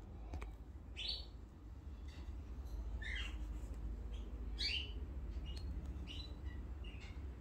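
A bird giving short, high chirps every second or two, some sliding down in pitch; the clearest come about a second in and just before five seconds in. A low steady rumble runs beneath.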